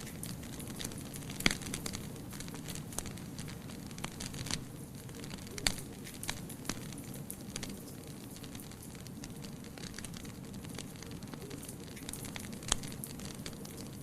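Wood fire burning in a fireplace: a steady low rush of flames with irregular sharp crackles and pops, the loudest a little after one second in, near six seconds and near the end.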